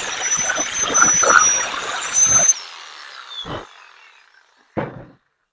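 Power saw cutting scrap plywood, a high-pitched motor whine over the noise of the cut, switched off about two and a half seconds in and winding down. Two short knocks follow, the second near the end.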